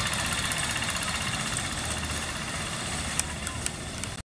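Two-wheel hand tractor's single-cylinder diesel engine running steadily under load as it pulls a harrow through tilled soil, with a few sharp clicks near the end before the sound cuts off suddenly.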